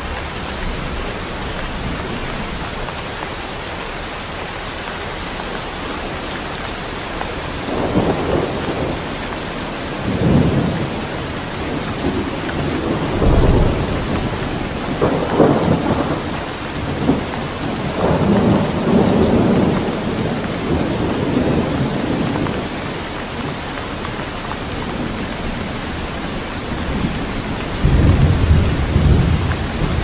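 Steady rain falling, with thunder rumbling several times from about eight seconds in, the longest rolls between about thirteen and twenty seconds and another starting near the end.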